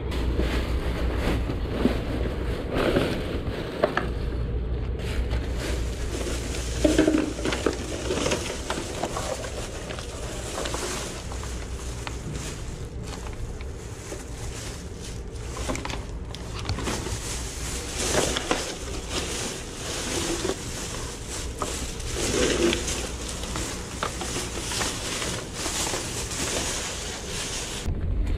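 Plastic trash bags and paper packing rustling and crinkling as gloved hands dig through them, in a continuous run of crackles, with a steady low hum underneath.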